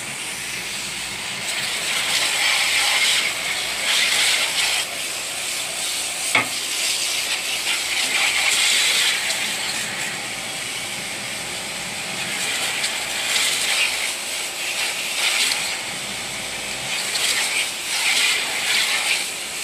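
Water jet from a copper-tube spray nozzle hissing against the aluminium fins of a split-type aircon's evaporator coil as it is rinsed clean, swelling and fading as the jet is swept across the coil. A single sharp click about six seconds in.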